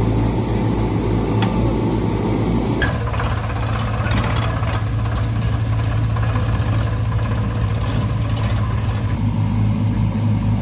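Diesel engines running steadily, first the JCB 3DX backhoe loader as it tips soil into a tractor trolley, then, after an abrupt change about three seconds in, a farm tractor running close by.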